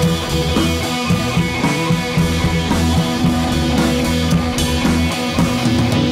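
Background rock music with guitar and drums, playing steadily.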